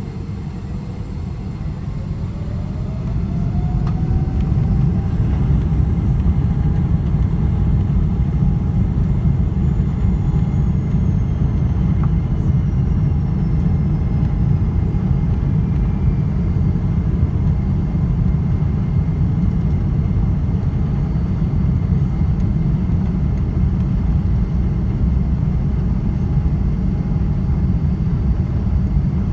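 GE90-115B turbofan engines of a Boeing 777-300ER, heard from inside the cabin over the wing, spooling up. A deep rumble grows louder over a couple of seconds, joined by a rising whine that then holds steady as thrust is set for the takeoff roll.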